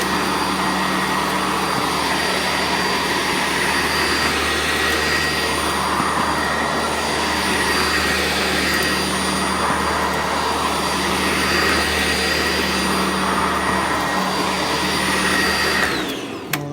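Sanitaire SC679J upright vacuum cleaner running steadily with a constant motor whine. Near the end it is switched off: the whine drops and fades, and a single click is heard.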